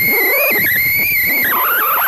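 Cessna 172 stall warning horn sounding, a high wavering wail that drops lower near the end. It warns that the wing is close to the stall.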